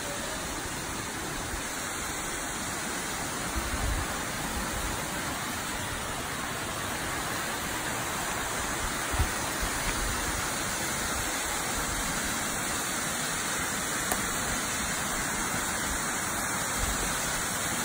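Waterfall cascading over stepped rocks: a steady rush of falling water, with a few soft low bumps, the loudest about nine seconds in.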